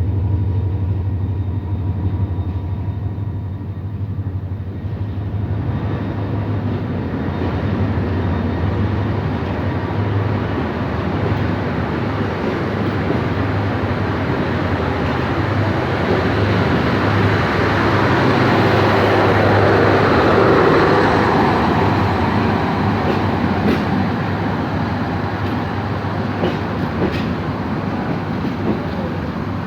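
Passenger train pulling out: a diesel locomotive's low, steady engine drone, then the rumble of the coaches rolling past. The rumble grows to its loudest about two-thirds of the way through, and a few wheel clicks follow near the end.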